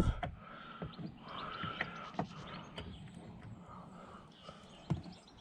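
A few sharp plastic clicks and taps as a small screw cap is worked out of a car door pull handle to reach the Torx screw beneath, with faint bird chirps in the background.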